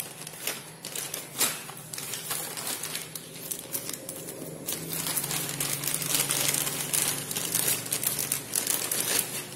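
Thin plastic packet of cable ties crinkling and rustling as it is handled, with irregular crackles throughout.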